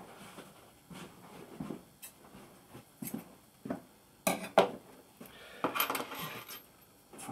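Scattered clicks and knocks of small objects handled on a workbench: a roll of electrical tape set down and plastic wiring connectors and cable picked up. The sharpest clatter comes in a cluster between about four and six and a half seconds in.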